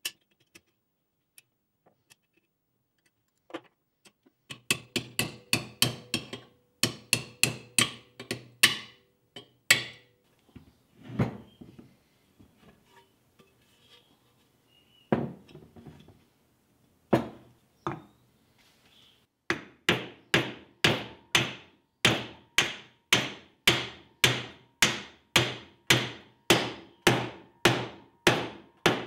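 Ball-peen hammer striking a wooden block laid on a Land Rover Series 3 gearbox casing to drive parts home. Quick runs of blows in the first half, a few single blows, then a steady run of about two blows a second for the last ten seconds.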